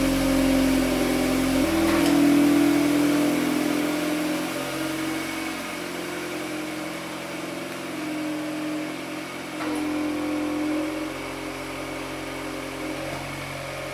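Volkswagen Golf R Mk8's turbocharged 2.0-litre four-cylinder engine and quad-tip exhaust running at low revs as the car pulls slowly away, with a step up in the engine note about two seconds in. The sound grows quieter as the car moves off.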